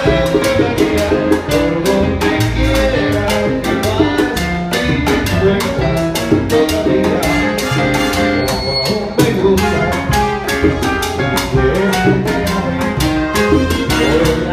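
Live salsa band playing: trombones over a steady percussion beat and bass.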